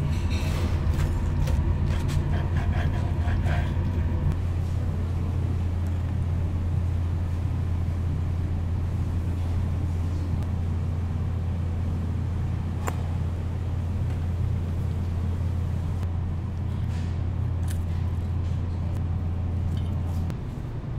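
A steady low hum that stops suddenly near the end. In the first few seconds, a knife saws through a crusty ciabatta sandwich on a wooden board, with scraping and crackling.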